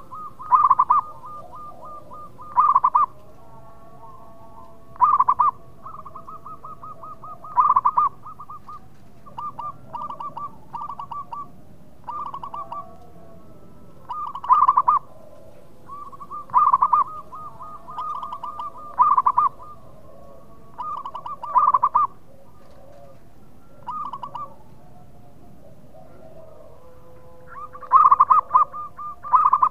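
Zebra dove (perkutut) singing: loud, high trilling coos, each phrase a run of rapid stuttering notes ending in a louder note, repeated about every two seconds.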